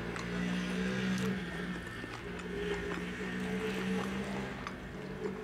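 Close-miked chewing of a soft bread roll with sausage, wet mouth clicks and squelches, over a low humming tone that shifts pitch every second or so.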